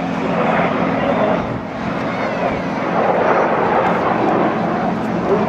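Jet noise from a close formation of four BAE Hawk T1 trainers flying overhead, a steady loud rush of turbofan engine sound.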